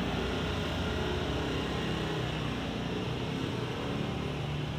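Steady road traffic noise with a vehicle engine running, a low hum underneath.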